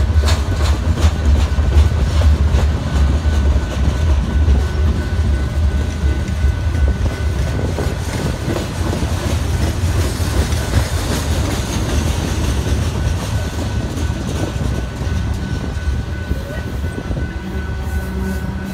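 Freight train of covered hoppers and tank cars rolling past close by: a loud, steady low rumble of steel wheels on rail, with rapid clicks as the wheels cross rail joints, and a thin steady ringing tone above. The clicks are densest early, and the whole sound eases a little toward the end.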